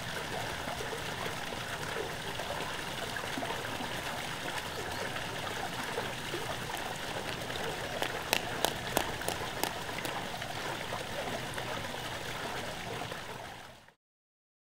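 Steady running and trickling water in a sea otter pool, with a quick run of about six sharp clicks or small splashes about eight seconds in. The sound fades out just before the end.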